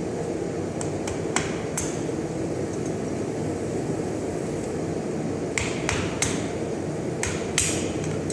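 Light metal-on-metal strikes, a hand hammer tapping steel at the anvil, in two short irregular runs of a few blows each, over a steady mechanical hum.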